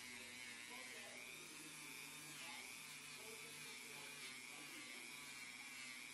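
Dremel rotary tool running at high speed with a sanding disc on a backing pad as it sands a block of wood: a steady high whine over a hiss, dipping briefly in pitch twice, about one and two and a half seconds in.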